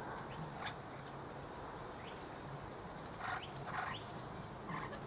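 Birds giving a few short, scratchy chirps, spaced irregularly about a second apart, over a faint steady low hum.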